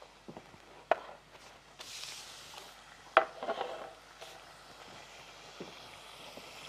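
Kitchen utensils knocking against a serving plate and counter: a sharp knock about a second in, and a louder one about three seconds in followed by a short clatter.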